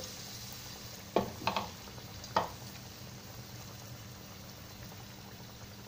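Vermicelli-coated potato kebab deep-frying in hot oil: a steady, quiet sizzle, with a few sharp crackles in the first two and a half seconds.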